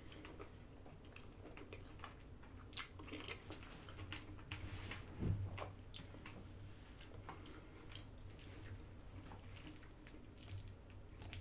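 A person chewing and eating, with faint wet mouth sounds and scattered light clicks. There is a low thump about five seconds in.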